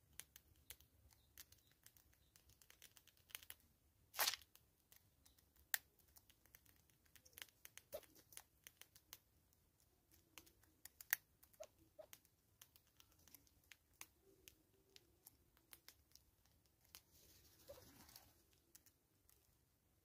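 Yellow-billed hornbill pecking into a container of seed: a scatter of sharp clicks and taps from its bill against the container and seeds, with a brief soft rustle near the end.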